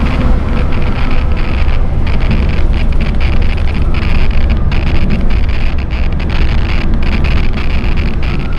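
Bus on the move: a steady low road rumble with a loud rush of wind on the microphone.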